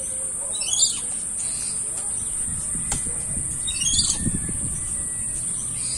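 A small bird chirping in two short flurries of quick notes, about three seconds apart, over a steady high-pitched hiss.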